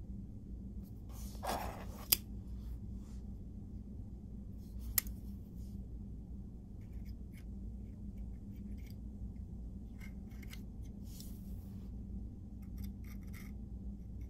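Snap-off utility knife handled against a 3D-printed plastic blaster: a short scrape ending in a sharp click about two seconds in, another sharp click about five seconds in, then scattered light scrapes and taps. A steady low hum runs underneath.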